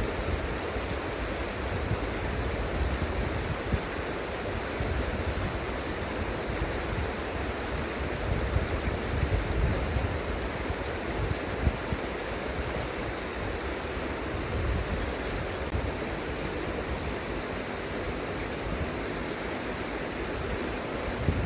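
Steady rush of flowing river water, with uneven low wind buffeting on the microphone.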